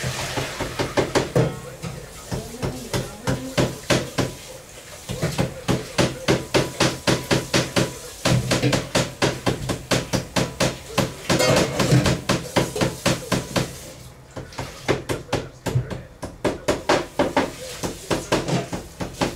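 Rapid, even knocking of a kitchen tool striking a work surface, many blows a second, easing off for a moment about fourteen seconds in and then carrying on.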